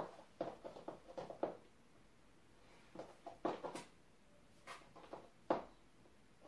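Scattered taps of stiletto high heels on a laminate floor as the wearer shifts weight and turns, some single and some in quick clusters of three or four.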